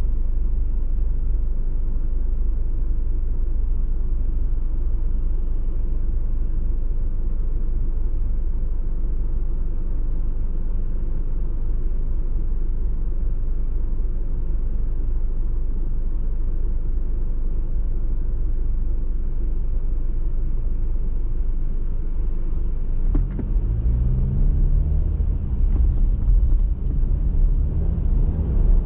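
Steady low rumble of a car driving on a highway, engine and tyre noise. Near the end the engine note rises twice as the car picks up speed.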